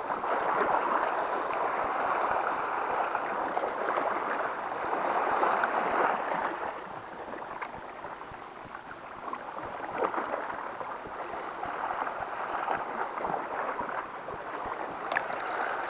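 Sea water washing and splashing over shoreline rocks, the wash swelling and easing: loudest for the first six seconds, dropping back, then building again.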